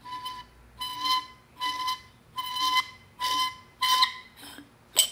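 Aluminium oil catch can being unscrewed by hand, its bottom section squealing in about seven short, high, whistle-like bursts, one with each twist, then a sharp click near the end. The owner puts this horrible noise down to a crooked piece at the bottom of the can rubbing as it turns.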